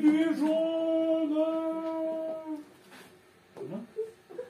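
A man's voice in one long drawn-out shout, rising at the start and then held on a single pitch for about two and a half seconds. It is a mock cry from the edge of a cliff, told as part of a joke. A brief short vocal sound follows near the end.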